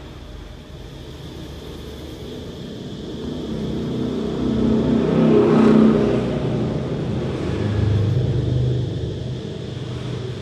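A passing motor vehicle: a low rumble that swells up to a peak around the middle, swells again a little later and fades toward the end.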